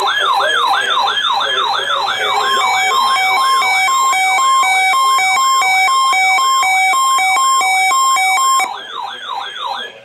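Weather alert radio sounding its alarm for a Required Weekly Test: a loud siren-like whoop that sweeps up in pitch a bit more than twice a second. About two and a half seconds in, a second alarm of alternating two-pitch beeps joins it and stops about a second before the end.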